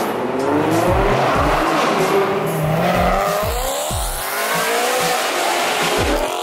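Sports-car engines revving and accelerating as cars drive past, their exhaust notes rising and falling in pitch, over background music with a steady beat.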